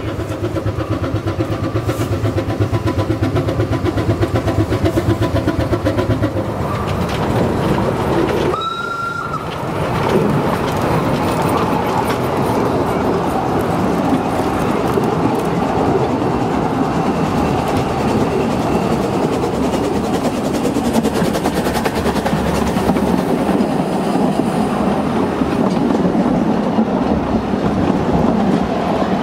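Narrow-gauge steam train running past: the locomotive working, one short whistle blast about nine seconds in, then the steady rumble and clatter of the coaches' wheels on the rails as they roll by.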